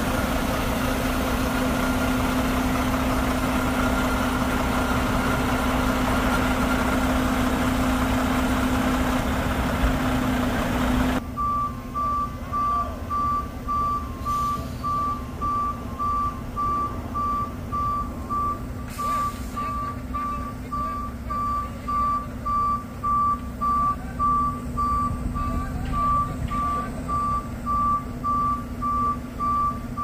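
A heavy diesel truck engine running steadily. About eleven seconds in the sound changes abruptly to a truck's reversing alarm beeping at an even rhythm over a low engine rumble.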